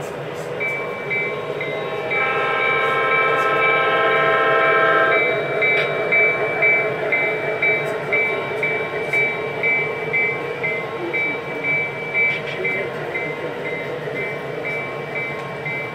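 O scale model train sound system: a horn chord sounds for about three seconds, starting about two seconds in, while a bell dings steadily about twice a second over a running hum.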